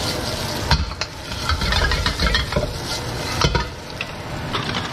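Parboiled potato quarters frying in hot olive oil with a steady sizzle as they are stirred and tossed in the pan. A few sharp knocks and scrapes come from the utensil against the pan.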